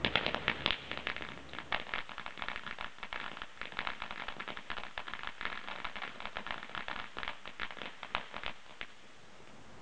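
Weco "Lighthouse" 35-shot fireworks battery crackling: a dense, irregular run of sharp pops and crackles, loudest at the start, that stops abruptly about nine seconds in.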